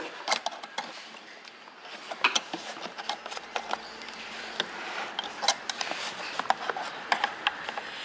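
Screwdriver prying at the metal spring clip on a Renault Mégane heater core's pipe joint: a run of irregular sharp metallic clicks and short scrapes against the plastic housing.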